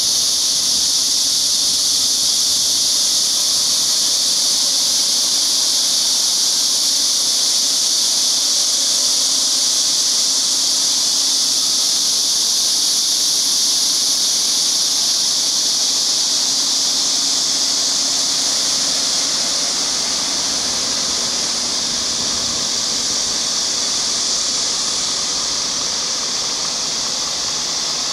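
A loud, steady high-pitched hiss that runs without a break and eases a little after about twenty seconds, with a faint low hum underneath.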